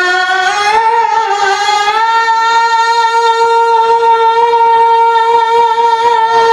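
An elderly man's voice holding one long, high sung note of an unaccompanied naat into a microphone, rising a little over the first two seconds and then held steady.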